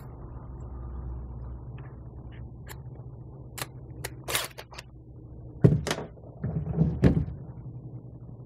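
Clicks and clinks of a bit being swapped in a cordless drill's keyless chuck, then a few louder knocks and rattles of handling near the end.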